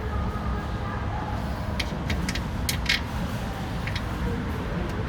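Several short metal clicks and taps from the rim lock cylinder and its screws being handled and fitted into the door, a cluster about two to three seconds in and one more near four seconds, over a steady low rumble.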